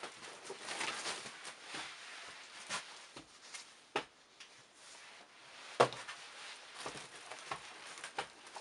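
Used shoes being handled on a heap: rustling and light knocks of soles and straps, with a sharp knock a little before six seconds in as a pair of leather sandals is laid down on the pile.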